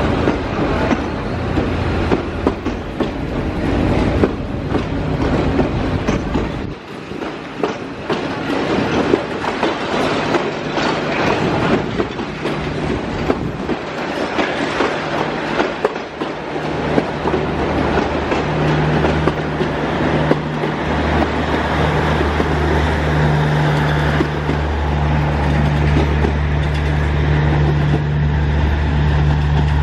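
Passenger train coaches rolling along the track, their wheels clacking over the rail joints, loudest in the first few seconds as the cars go by. About halfway through, a steady low engine hum rises and grows stronger to the end.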